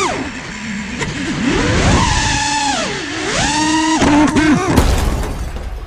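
FPV quadcopter's motors and propellers whining, the pitch sweeping sharply up and down several times with the throttle. A short rough burst comes near the end, then the sound dies away.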